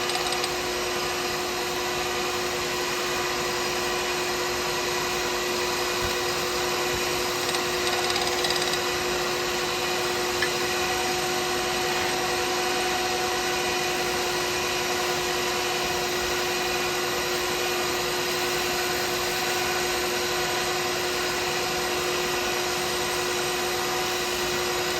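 Wood lathe running steadily with a constant motor hum while a turning tool takes light finishing cuts on a cast pen blank.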